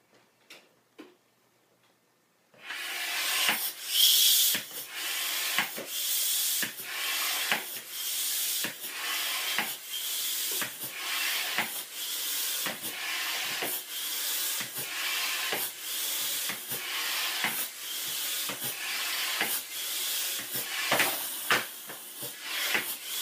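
Vacuum cleaner switched on about two and a half seconds in, its air stream blowing into a balloon: a loud, steady rushing hiss that dips briefly and regularly, about every two-thirds of a second.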